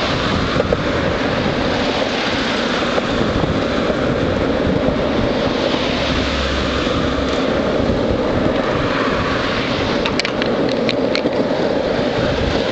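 Longboard wheels rolling fast over asphalt, a steady rumble mixed with wind buffeting the microphone. A few sharp clicks come about ten seconds in.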